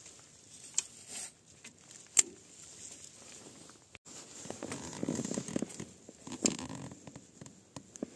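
Handling noises on a Massey Ferguson 30 tractor with the engine not running: a few sharp clicks from the controls and a stretch of scraping and shuffling as a boot is set on the footrest.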